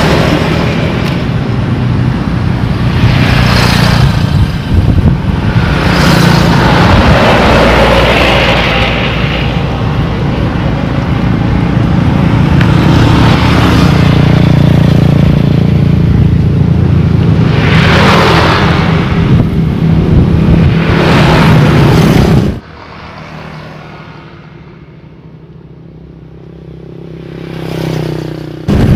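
Road traffic passing close by: vehicles going past one after another, each swelling and fading over a steady engine hum. About three-quarters through the sound drops suddenly to a much quieter hiss, then swells again near the end as another vehicle comes closer.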